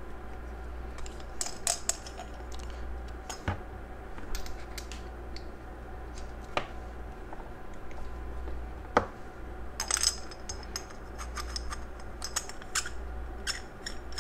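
Scattered small metal clicks and clinks as the parts of a copper Timesvape Dreamer mechanical vape mod are handled, unscrewed and threaded together, with a steady low hum underneath.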